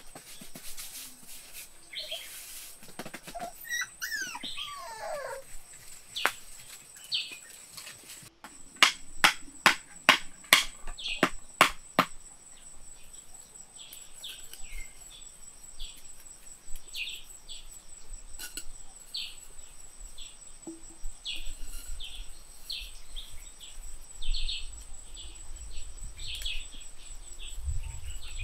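Small birds chirping in short repeated calls over a steady high insect whine. About a third of the way in comes a quick run of about eight sharp knocks.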